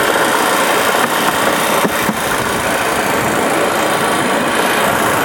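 Motorcycle engine running steadily as it pushes a moto-rail trolley along railway tracks, with a couple of faint knocks about two seconds in.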